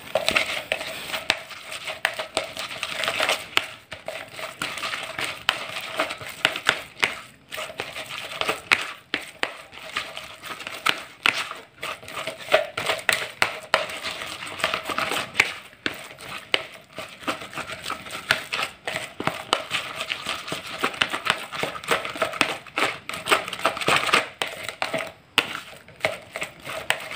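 A plastic rice paddle stirring and pressing a wet, crumbly fish-bait dough against the side of a plastic bowl: a continuous run of irregular scraping and squishing strokes.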